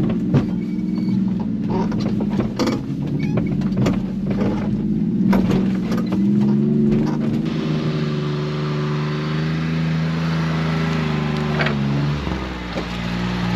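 Small kei-truck engine running in a low gear over a rough dirt trail, with knocks and rattles from the cab as it goes over bumps. About halfway through the engine note steadies and a hiss joins it.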